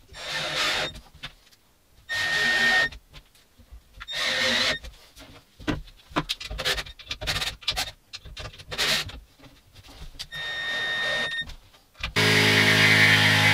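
Cordless drill driving screws into MDF board, in about four bursts of roughly a second each with small knocks and rubbing between them. About twelve seconds in, a jigsaw starts and runs with a loud, steady buzz.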